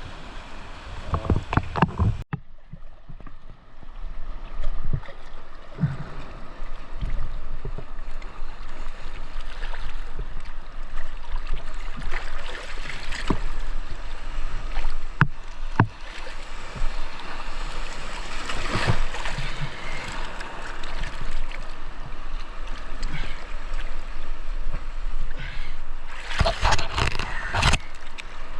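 Water sloshing and gurgling close to the microphone, with scattered knocks and clicks, the sound of a camera carried by a swimmer in the sea. The sound changes abruptly about two seconds in.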